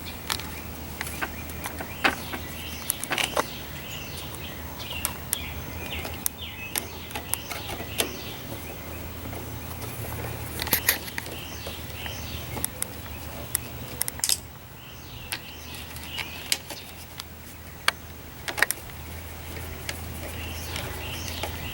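Scattered metallic clicks and clinks of hand tools on small engine parts as a Briggs & Stratton lawnmower carburetor is screwed back in place. Birds chirp in the background over a steady low hum.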